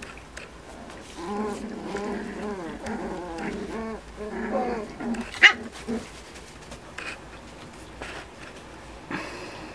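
Miniature Schnauzer puppies play-fighting, giving a run of short pitched cries that rise and fall, with a sharp knock about five and a half seconds in.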